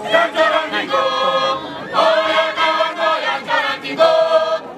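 A group of voices singing a traditional Kavango song together, in short phrases with brief breaks between them.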